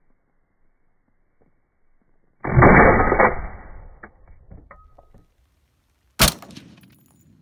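Two shots from a suppressed CR-7 prototype rifle in .338 Lapua Magnum, a piston-operated AR-type gas gun. The first comes about two and a half seconds in, dull and muffled with a long decay and a few light clicks after it. The second, near the end, is a sharp crack that dies away over about a second.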